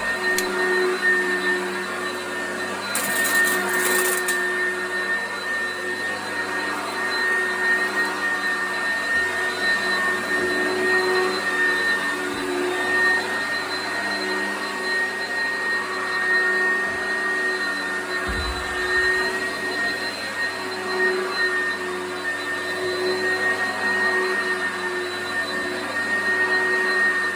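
Oreck XL commercial upright vacuum cleaner running on carpet, a steady motor whine over rushing air. A brief burst of hiss comes about three seconds in.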